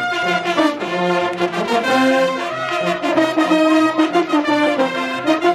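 A Bersaglieri-style fanfare of trumpets and trombones playing a tune in full chords, held notes changing every half second or so.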